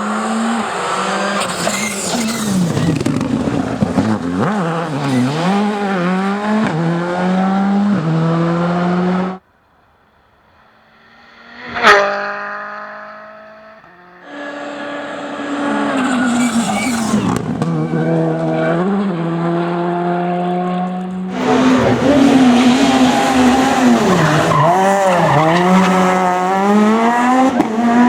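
Rally car engines revving hard and changing pitch through gear changes, in several clips cut one after another. About twelve seconds in, one car passes close and fast, its pitch dropping as it goes by.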